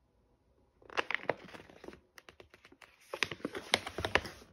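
Stiff resealable plastic snack pouch crinkling as it is handled: two spells of crackling with a few sharp separate clicks between them.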